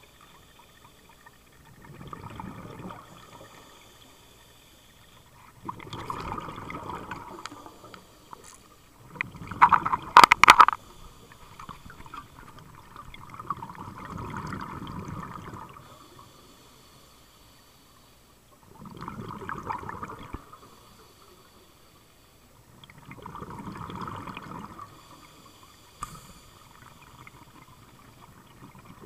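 A scuba diver breathing through a regulator underwater: exhaled bubbles burst out and gurgle about every four to five seconds, six times. The loudest breath, about ten seconds in, comes with sharp clicks. A fainter hiss runs between the breaths.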